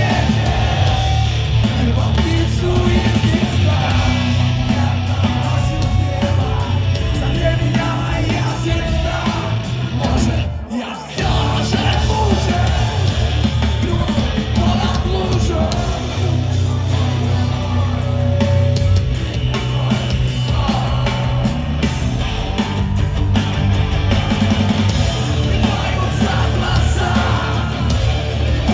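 A heavy rock band playing live and loud, with a dense wall of band sound and a brief drop-out break about ten and a half seconds in.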